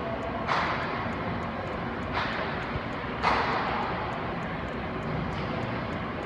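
Ice-arena ambience: a steady mechanical drone with three sharp, echoing knocks, one about half a second in, one a little after two seconds and one a little after three seconds.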